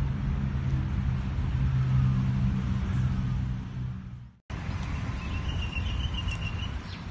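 Steady low hum of city road traffic with the outdoor air of the park. After a cut about four seconds in, a quieter background with a short run of high chirps.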